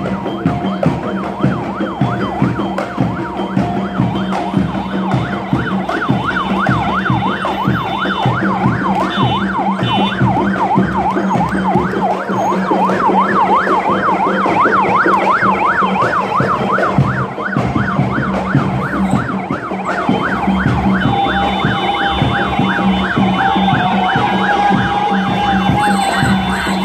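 Electronic yelp siren, its pitch sweeping rapidly up and down several times a second and running on without a break, over a steady low hum.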